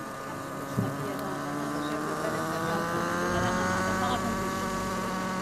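Radio-controlled Hirobo Freya model helicopter's small engine running on the ground, rising steadily in pitch as the main rotor spools up. A short knock comes about a second in.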